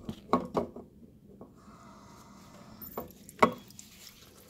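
Dishes and utensils knocking and clattering in a kitchen sink: a few light knocks at first, a short steady hiss in the middle, then one sharp clack.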